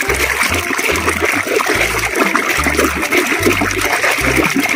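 Soapy water sloshing and splashing in a plastic tub as hands churn through thick foam.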